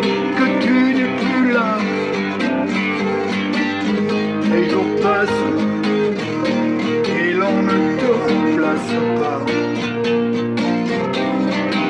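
Instrumental music: a plucked acoustic guitar playing a steady run of notes.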